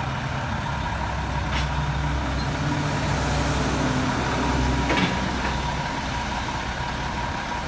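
Heavy crane truck's diesel engine running steadily while its Fassi knuckle-boom crane swings a hanging scrap vehicle, with a thin steady whine and two brief knocks, about one and a half and five seconds in.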